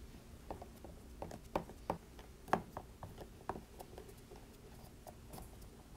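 Faint, irregular small clicks and ticks of a Phillips 00 precision screwdriver turning out the tiny screws of a MacBook's memory door, a dozen or so scattered through the stretch.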